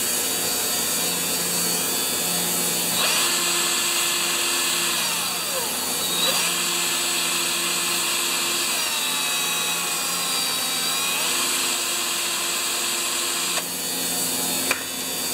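Cordless drill running, spinning a tiny Q-tip to polish the inlet needle seat of a small-engine carburetor. The motor's pitch wavers a little as the trigger is eased. A rubbing hiss joins in about three seconds in and stops shortly before the end.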